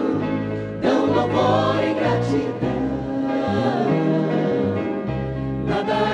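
A choir singing a hymn in held chords, moving to a new chord about every second.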